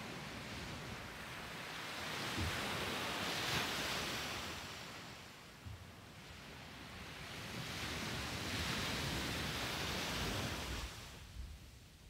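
Small waves breaking and washing up a sandy beach: the hiss of the surf swells to a peak about three to four seconds in, eases off, then rises again and fades away near the end.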